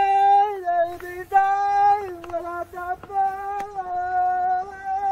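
A single high voice singing a slow, unaccompanied Sinhala threshing chant (kavi), drawing out long held notes that step and dip down in pitch at the end of each phrase, with short breaths between.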